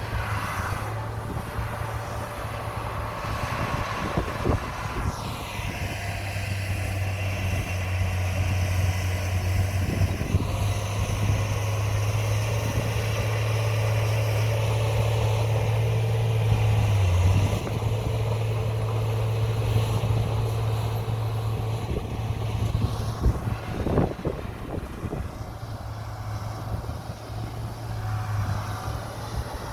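Komatsu bulldozer's diesel engine running with a deep steady hum. It builds over several seconds and drops back suddenly about seventeen seconds in, with a few sharp knocks along the way.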